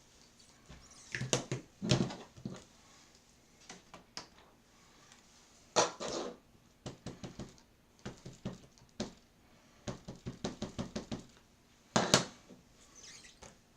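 Hands working with card-making supplies on a table: irregular knocks, clicks and rustles, with a few sharper strikes and two quick runs of light taps.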